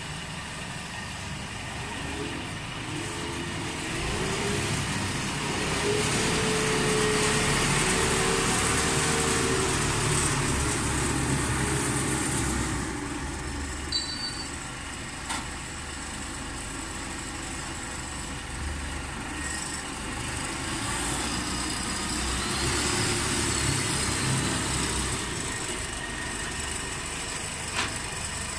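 Four-row corn harvester running, its engine and machinery making a steady drone that grows louder for several seconds at a time, with a few brief sharp knocks.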